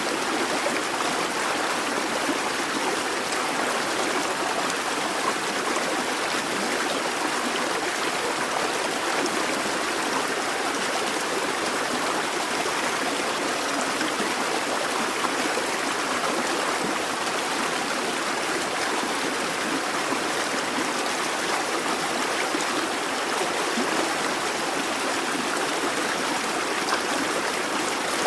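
A busy babbling brook: water running steadily over stones, a continuous bubbling rush with no pauses.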